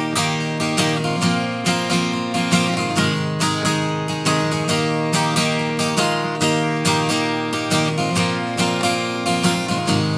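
Acoustic guitar strummed in a steady rhythm, chords ringing with about three to four strokes a second, with no singing.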